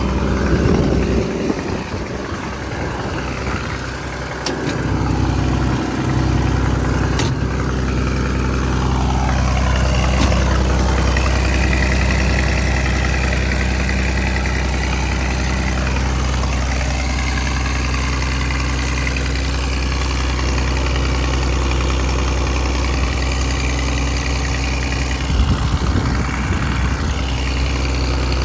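The Mitsubishi diesel engine of a Kobelco SK210LC track excavator running steadily at idle. Its low hum strengthens about four seconds in, and higher-pitched tones rise and fall over it through the middle.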